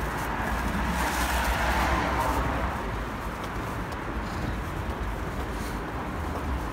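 Traffic noise on a city street, with a car swelling past about a second or two in over a low steady rumble.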